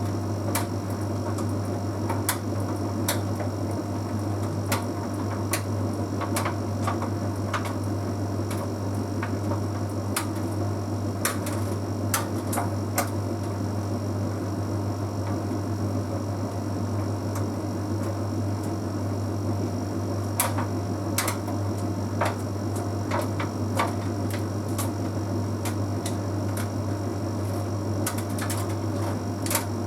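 Bosch Series 6 heat pump tumble dryer running with its drum turning: a steady low hum under the tumbling, with irregular light clicks and taps as the half load of synthetics turns in the drum.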